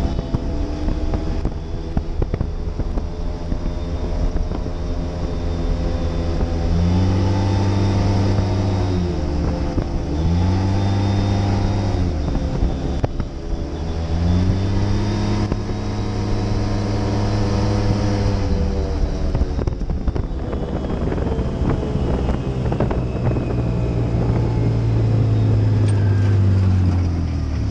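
Side-by-side UTV engine running under way. Its pitch climbs and drops three times as the throttle is worked through the middle stretch, then holds steady near the end, with wind and road noise throughout.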